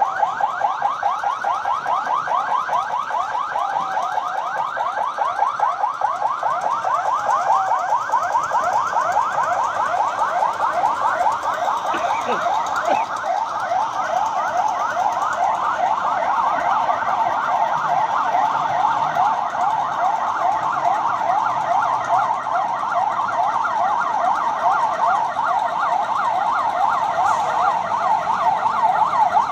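Electronic alarm siren sounding rapid rising sweeps, several a second, without a break: the alarm signal for an earthquake drill.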